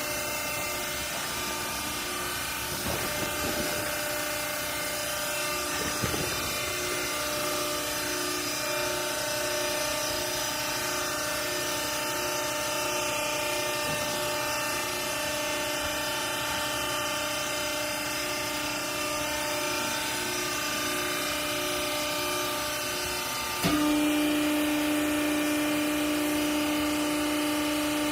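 Rag baling machine running with a steady motor hum. There are a couple of knocks in the first few seconds, and near the end the hum suddenly steps up and grows louder.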